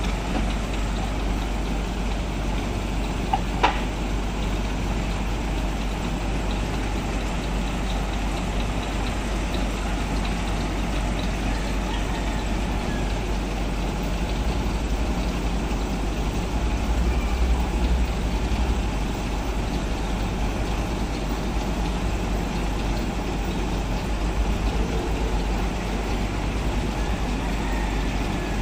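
Heavy truck diesel engine running steadily at low revs, with a deep constant rumble. Two sharp clicks come about three and a half seconds in, and the engine swells slightly louder a little past halfway.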